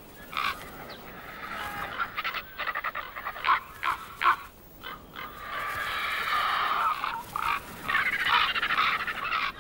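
Ravens calling again and again in short calls while they squabble with griffon vultures over a carcass. The calls are scattered at first, then run together into a denser, nearly continuous stretch from about halfway in.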